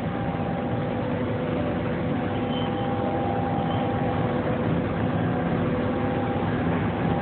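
Steady hum of running machinery in a machine shop, an even noise with a few steady tones held throughout.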